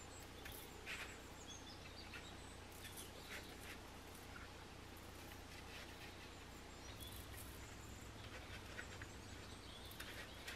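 Faint, scattered scratchy rustles of parchment paper and loose breadcrumbs as crumb-coated dough balls are set down on a baking tray, over a steady low hum.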